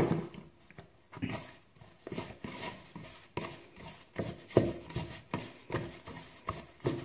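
Slack, sticky bread dough being beaten by hand in a plastic bowl, squishing and slapping in quick repeated strokes, about two a second, as a little flour is worked in.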